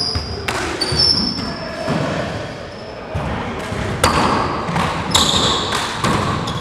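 Handball rally in an enclosed wall court: several sharp smacks of the ball struck by hand and hitting the walls, echoing in the court, with sneakers squeaking on the hardwood floor between hits.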